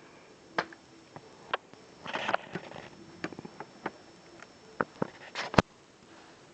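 LEGO plastic parts clicking and tapping as a sight is handled and fitted onto a brick-built rifle model. There is a short rustle about two seconds in and a sharp click near the end.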